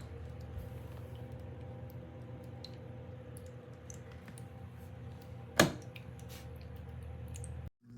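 Tabletop waterfall fountain running: the steady hum of its small water pump under a faint trickle with scattered small ticks of dripping water. One sharp click about five and a half seconds in, and the sound cuts off suddenly near the end.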